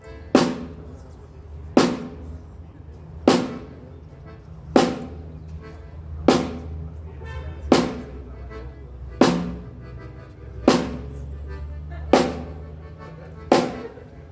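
A snare drum is struck once about every second and a half at an even, slow pace, ten hits in all. This is the single-drum repeated hitting of a drum-kit sound check, done while the microphone level is set.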